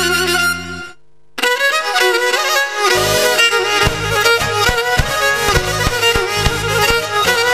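Pontic lyra (kemenche) playing a quick bowed melody with keyboard accompaniment in traditional Pontic dance music. A held chord cuts off just under a second in, there is a brief pause, the lyra comes back in, and the daouli bass drum joins with a steady beat about three seconds in.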